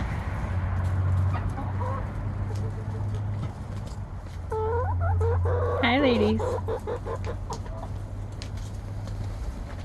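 Backyard hens clucking, with a cluster of short calls that rise and fall in pitch near the middle, and light sharp taps scattered throughout over a steady low hum.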